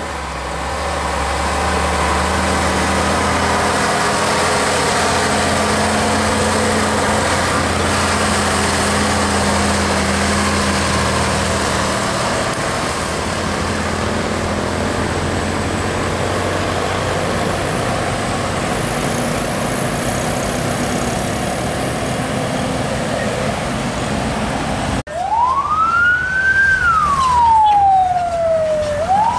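Heavily loaded dump truck's diesel engine pulling past steadily, with tyre and road noise. About 25 seconds in, the sound cuts to a wailing siren that rises and falls in pitch, once fully and then starting again near the end.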